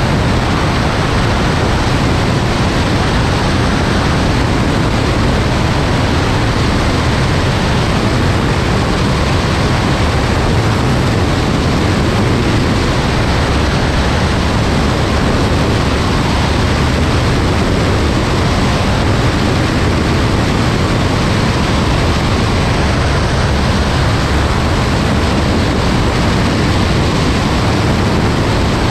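Steady rush of wind and engine-propeller noise from a Cessna 172 Skyhawk II in flight on final approach, heard from a camera outside the cabin. The level holds even throughout with no power change.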